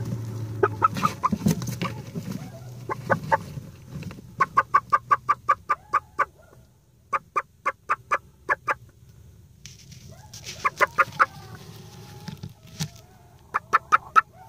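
Domestic hen clucking: bursts of short, sharp clucks at about four or five a second, with pauses between the bursts.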